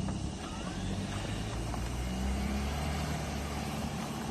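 Off-road vehicle engine running, its pitch shifting up and down a little as the throttle changes.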